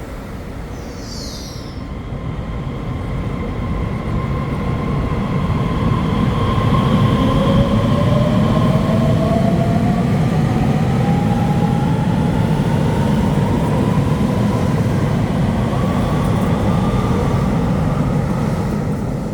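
Electric train running through the station, its rumble building over the first several seconds. The traction motors' whine rises steadily in pitch over several seconds, typical of the train gaining speed.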